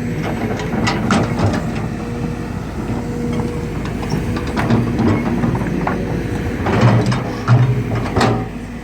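Excavator's diesel engine running under load, with scattered metallic clanks and squeaks from the working arm and bucket as it moves soil.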